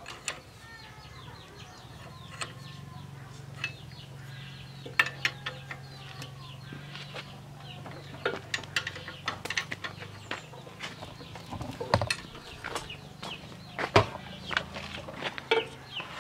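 Chickens clucking, with sharp metal clinks now and then as hand tools knock against a small single-cylinder diesel tractor engine being reassembled; the clinks are the loudest sounds, the sharpest about five, twelve and fourteen seconds in.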